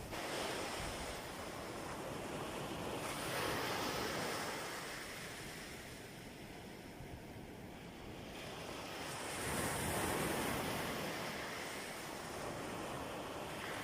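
Sea waves breaking and washing in, swelling twice, about three seconds in and again about ten seconds in, with a quieter lull between.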